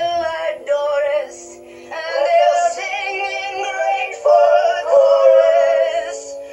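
Women singing a stage-style show tune with orchestral accompaniment, long held notes and a short drop about a second in, played through a television's speakers in a room.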